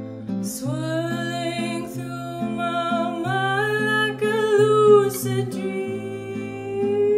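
A woman singing long, held notes that glide up and down, over a fingerpicked nylon-string classical guitar. The voice comes in about half a second in, while the guitar keeps up a steady pattern of plucked bass and chord notes.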